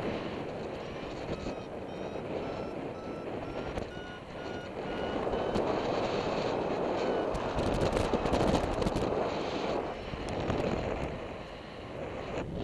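Paragliding variometer beeping in a steady run of short beeps that rise in pitch over the first half, the sign of the glider climbing in a thermal. Wind rushes over the microphone throughout, growing louder and crackling after the beeps stop.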